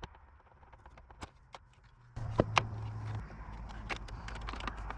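Scattered clicks and light knocks of hands and tools working small electrical parts loose, as the PTCR start-assist canister is taken out of a rooftop RV heat pump's control box. One sharper click about two and a half seconds in, and a low hum joins about two seconds in.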